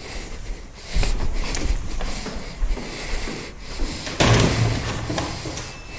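Lift doors being worked: rumbling handling noise, then a loud door bang a little past four seconds in, followed by a low hum. The lift is a 2008 Electra Vitoria passenger lift.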